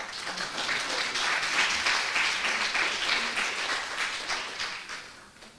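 Audience applauding: dense clapping that starts at once and fades out near the end.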